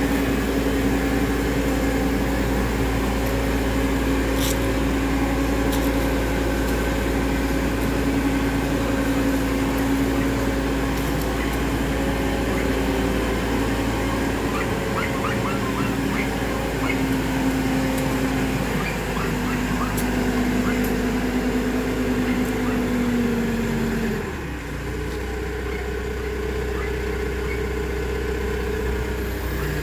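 Genie GTH telehandler's diesel engine running steadily at raised revs as the machine drives, then dropping back toward idle about 24 seconds in.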